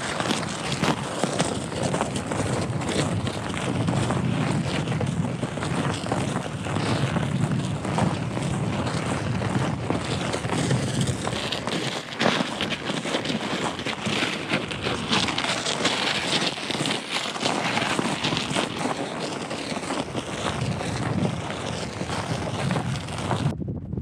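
Wind buffeting the microphone, a steady rough noise, over footsteps on frozen, icy snow.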